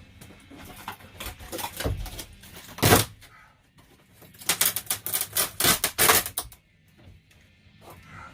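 Knocking and clattering from the demolition of an RV ceiling: a few light knocks, a loud bang about three seconds in, then a quick run of sharp knocks for nearly two seconds.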